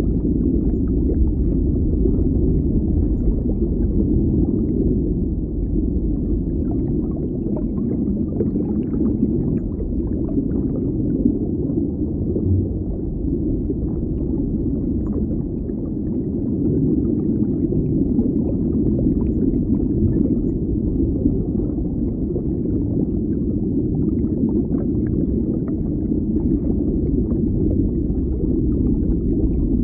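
Deep-water underwater ambience: a steady low rumble with faint small crackles throughout.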